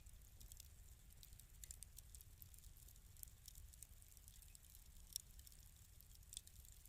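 Wood fire in a fireplace crackling faintly: scattered small pops and snaps over a low steady rumble, with a sharper pop about five seconds in and another near the end.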